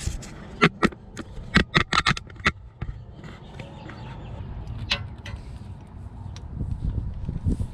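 Ratchet wrench and socket clicking and clinking on a bolt in the engine bay: a quick irregular run of sharp metal clicks in the first couple of seconds and one more about five seconds in. A low rumbling handling noise with small knocks comes near the end.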